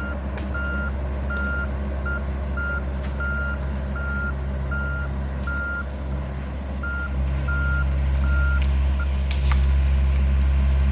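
Mini excavator's diesel engine running while its motion alarm beeps in short tones, about two a second. The engine grows louder about two-thirds of the way through as the machine pushes a tree over, and a few sharp cracks come near the end.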